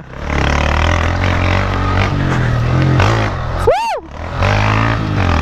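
A 160 cc motorcycle engine running at low revs, picking up briefly about two seconds in and dropping off near four seconds. There is one short shout from the rider near four seconds.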